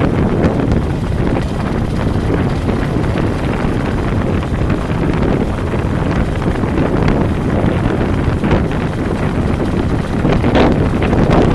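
Wind buffeting the microphone of a camera on a moving vehicle, over steady road and vehicle noise, with a few louder gusts near the end.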